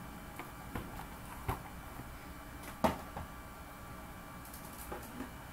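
Room tone with a few scattered short clicks and knocks, the loudest about three seconds in.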